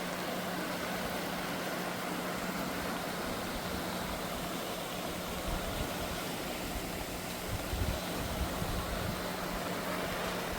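Steady rushing of a swollen, flooded river's heavy water, with a steady low hum underneath and a few faint low knocks.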